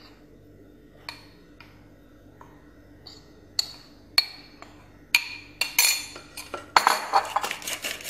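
Stainless steel cup flour sifter: a few separate clinks and taps as flour is tipped in from a dish, then from about seven seconds in a fast run of metallic clicks as the sifter is worked to sift the flour.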